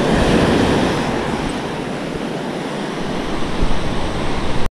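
Small Gulf surf waves washing up onto the sand at the shoreline, a steady rushing wash that swells in the first second, with wind buffeting the microphone. The sound cuts off abruptly for a split second near the end.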